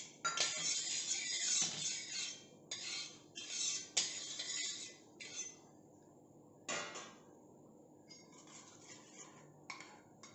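A steel spatula scraping across a hot iron tawa as it spreads freshly poured oil, with sizzling, in a run of strokes for about five seconds. There are sharp clinks of metal on metal at the start and about four seconds in, and another knock near seven seconds, after which only faint scraping is left.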